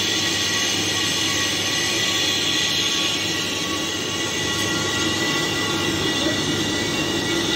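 Large horizontal lathe cutting a rotating steel workpiece: steady machining noise of the spinning part and tool on metal, with several steady high-pitched whining tones from the cut.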